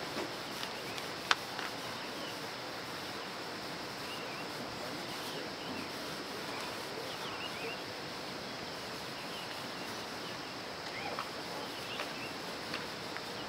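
Rural outdoor ambience: a steady background hiss with scattered faint bird chirps throughout, and one sharp tick about a second in.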